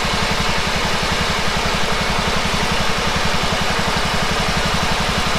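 Small engine idling steadily, with an even, fast low pulsing.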